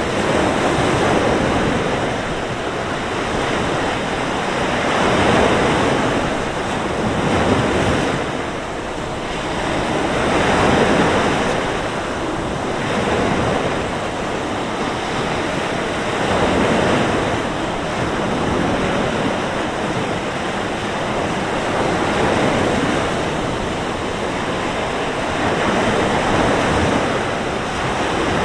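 Sea waves breaking and washing on a beach in a steady surf that surges and eases every few seconds, with wind blowing through it.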